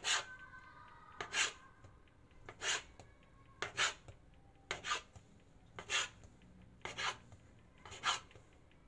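Metal bench scraper chopping through a log of bread dough and scraping down onto a marble counter, a short rasping stroke for each mini roll cut, roughly once a second.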